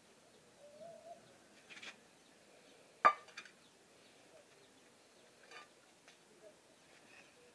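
Quiet handling sounds: a few light clinks and knocks of metal bowls and fish being moved, with one sharp knock about three seconds in. A short faint wavering call sounds about a second in.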